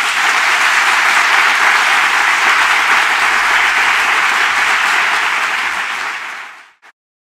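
Lecture audience applauding loudly and steadily, cut off abruptly near the end.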